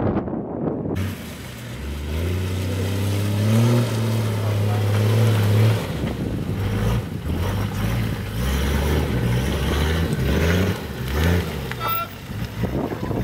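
Old Toyota Land Cruiser's engine working at low revs off-road: held steady for a few seconds, then the revs rise and fall in short steps as the throttle is worked. A short high squeak comes near the end.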